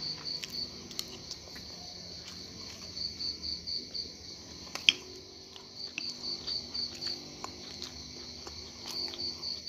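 Crickets chirping: a steady high buzz with trills of about five quick pulses recurring every three seconds. A spoon clinks and taps on a plate several times, with one sharp clink about five seconds in.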